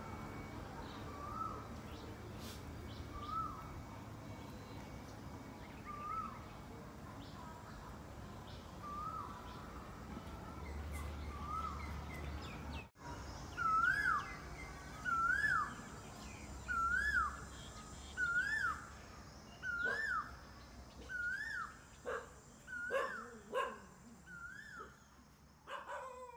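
An animal's short rising-then-falling call, repeated about every one and a half seconds, faint at first and much louder after about thirteen seconds, with a few knocks near the end.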